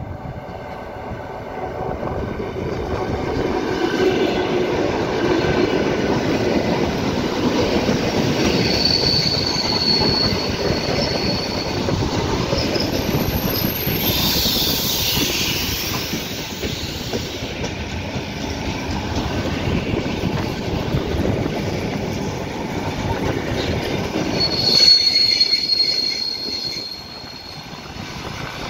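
ED9M electric multiple unit running into a station alongside the platform, its wheels rumbling on the rails. A high squeal comes in about nine seconds in and again, loudest, near the end as the train slows, and the noise drops off just after.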